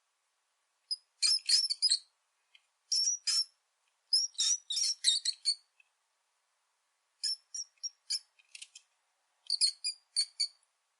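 Rat squeaking: clusters of rapid, high-pitched squeaks in five bursts, with silent pauses between them.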